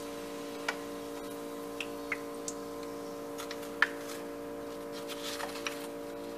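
A few light, sharp clicks and taps of a metal spatula against a glass dish, made as fried stuffed potato balls are set down on paper towel to drain. The loudest tap comes near the middle. A steady low hum runs underneath.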